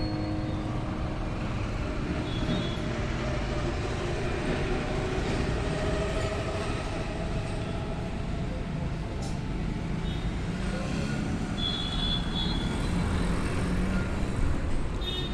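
Steady street traffic noise: a continuous low rumble of vehicles, with a few faint high tones a little past the middle.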